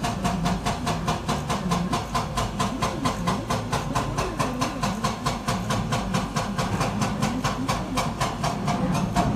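Caterpillar excavator running under load, a steady engine drone with a rapid, even clatter of about six beats a second.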